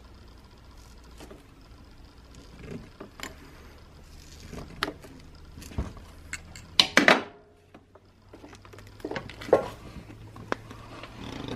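Hands working a small rubber vacuum hose and its plastic fittings loose in a Nissan S15's engine bay: scattered clicks, rubs and knocks, the loudest a sharp clatter about seven seconds in. The hose is stubborn and won't come off easily.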